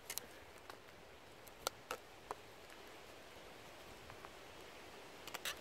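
Hultafors OK4 bushcraft knife's Scandi-ground blade cutting into a green stick while carving a pot hanger. It makes a few faint, separate scrapes and clicks: one at the start, three about two seconds in, and a quick cluster near the end.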